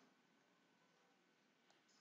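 Near silence between sentences of narration.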